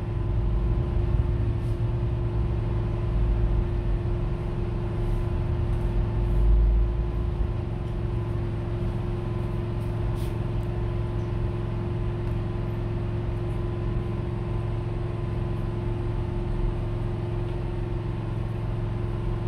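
Steady low mechanical hum with a faint constant whine, like a running engine or motor, with a brief low swell about six seconds in and a few faint clicks around the middle.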